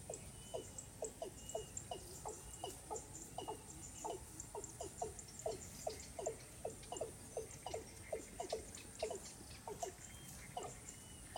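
Watercock calling: a steady series of short, low, falling notes, about two to three a second. A thin, steady high buzz of insects and a few faint higher bird notes run beneath it.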